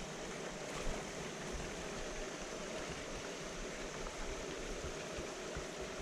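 Steady running of a rainforest creek, its water flowing over rocks, with a few faint low thumps.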